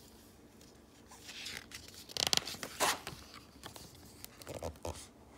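Page of a hardcover picture book being turned: paper rustling and sliding in a few short bursts, loudest about two seconds in.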